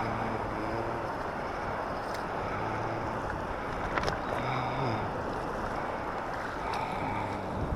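Steady wind noise on the microphone over a rushing-water background, with a few faint clicks and a faint low hum that comes and goes.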